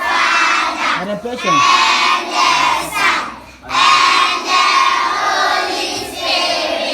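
A large group of schoolchildren singing together in unison, the many voices loud and blended, with a short pause about three and a half seconds in.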